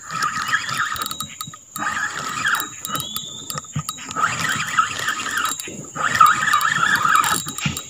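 Spinning reel being cranked in four spurts, its gears whirring, as a fish that has taken the bait is reeled in.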